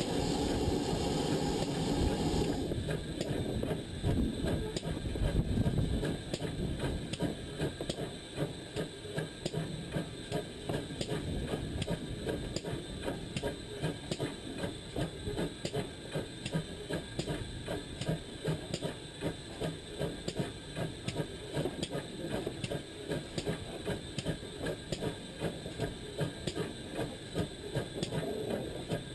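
Pannier tank steam locomotive running, heard from the front of the engine: a fast, even rhythm of beats over a steady hiss, with a louder hiss for the first two seconds or so.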